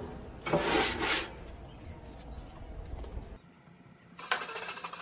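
Nylon-bristle scrub brush scrubbing degreaser-soaked grease off the metal floor of a gas grill's cookbox: one loud stroke about half a second in, then softer scraping that stops briefly before the rubbing resumes near the end.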